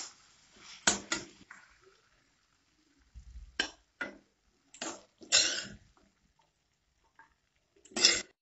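Metal spatula scraping and knocking against a metal kadai as cooked pea curry is scooped out onto a plate: a string of short scrapes, with one longer scrape about halfway through.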